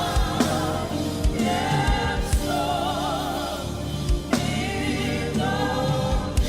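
Gospel worship music: a choir singing with a band, wavering vocal lines over held chords, with a drum kit's kick thumps and cymbal strokes.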